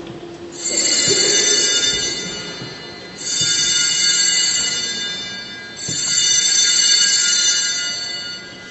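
Altar bells rung three times at the elevation of the Mass, marking the raising of the host or chalice. Each ring is a bright cluster of high tones that dies away over about two seconds.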